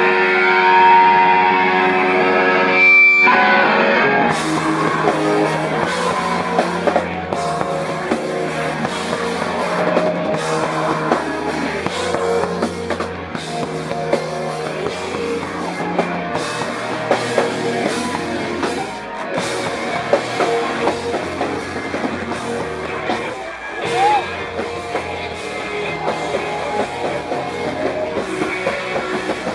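Live rock band playing, with electric guitars and a drum kit. A held guitar chord rings for the first few seconds and breaks off about three seconds in, then the full band comes in and plays on.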